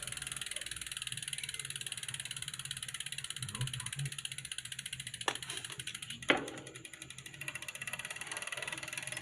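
Bicycle drivetrain turning with a fast, steady ratchet-like ticking, and two sharper clicks a little past halfway. The front derailleur is still making its noise after the adjustment screw was turned.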